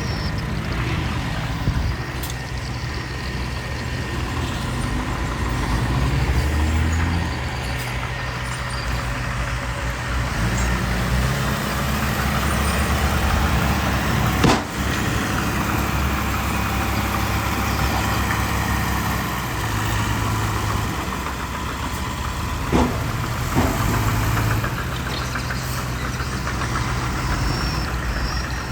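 Diesel engines of dump trucks and a bulldozer running at a fill site, their pitch rising and falling with the work. A single sharp knock about halfway through, and two smaller knocks some seconds later.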